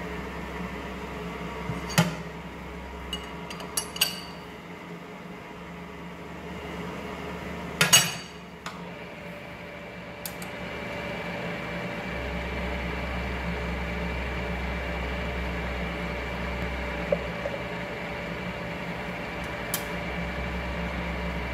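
Ward 2A capstan lathe running with a steady hum, broken by sharp metal clanks as tooling and the turret are worked, the loudest a short clatter about eight seconds in. About ten to twelve seconds in, the running note grows louder with a steady whine added, and stays so.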